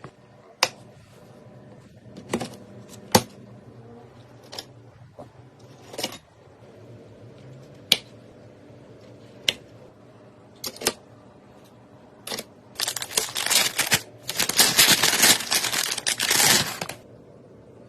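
Hands handling computer parts: scattered sharp clicks and knocks, then about four seconds of dense rustling near the end.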